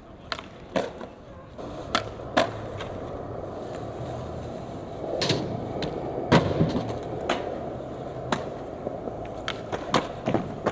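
Skateboard wheels rolling over rough concrete, broken by a series of sharp wooden clacks as the board pops off its tail and lands back on its wheels.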